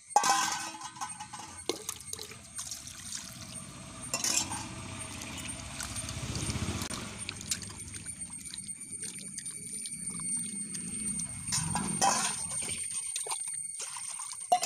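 Raw beef chunks being washed by hand in water in a steel bowl: water sloshing as the meat is squeezed and turned, with a few sharp clinks of metal against the bowl.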